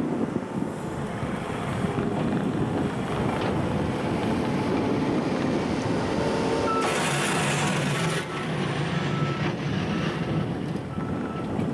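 New Holland C232 compact track loader's diesel engine running, with its reversing alarm sounding short beeps at one steady pitch in the second half. About seven seconds in, a loud rushing hiss lasts about a second.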